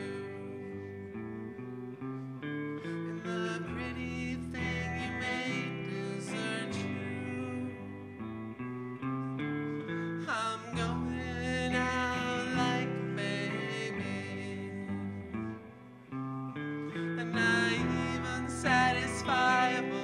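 A song played live on an electric guitar, with voices singing over it at times.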